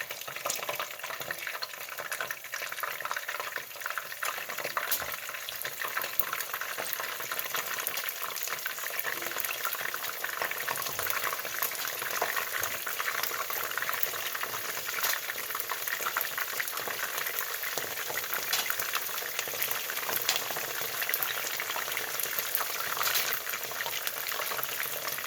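Battered chicken pieces frying in hot oil in a skillet: a steady sizzle with many small crackling pops. This is the second fry, which gives the coating an extra layer of crispiness.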